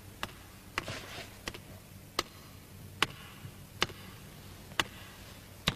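Footsteps of hard-soled shoes climbing stairs: about eight sharp clicks, one step every second or less, at a slightly uneven pace.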